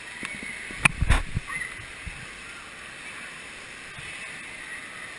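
Steady wash of water noise in an indoor waterpark's shallow splash pool, with a couple of sharp knocks about a second in.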